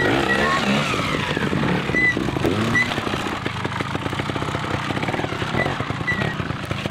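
Trials motorcycle engine running steadily as the bike is ridden slowly over rough ground.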